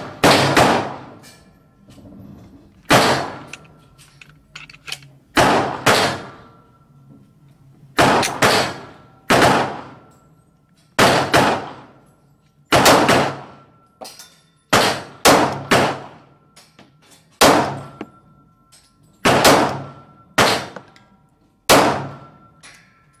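9mm semi-automatic pistol shots, a Glock 19 Gen 4 firing, cracking one after another at uneven intervals, each with a brief echoing tail. There are more shots than a single five-round string, so other guns on the range are likely mixed in.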